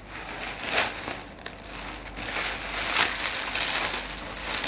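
Packaging being torn open by hand, crinkling and rustling as a parcel of T-shirts is unwrapped. It is loudest about a second in and again near three seconds.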